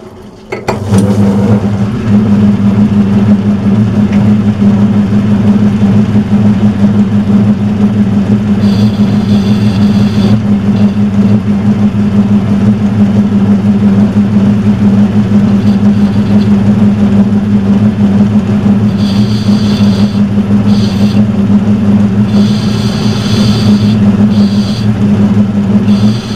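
Metal lathe starting up about a second in and running steadily with a strong hum. Several times in the second half a high-pitched sound comes and goes for a second or two at a time as the cutting tool works the change gear.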